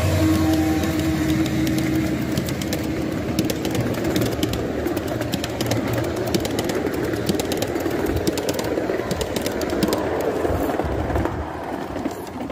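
Ride-on scale model train passing close by: a steady motor hum from the diesel-outline locomotive, then the freight cars' wheels rolling along the track with a quick run of sharp clicks.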